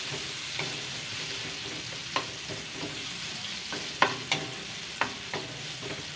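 Red onions and garlic sizzling in oil in a stainless steel wok while a metal spatula stirs them, clinking against the pan several times, loudest about four seconds in.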